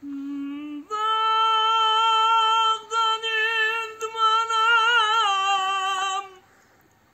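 A man singing a Turkish folk song unaccompanied: a short lower note, then a long, high held note with a wavering ornament near the end before it falls slightly and stops.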